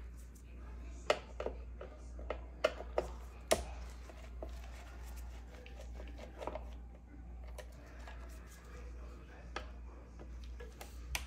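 Metal hand tools clicking and clattering while someone rummages for a screwdriver: a quick string of sharp knocks in the first few seconds, then sparser ones, over a steady low hum.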